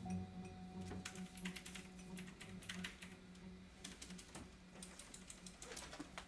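Computer keyboard being typed on steadily: quick, irregular key clicks, faint and a few desks away.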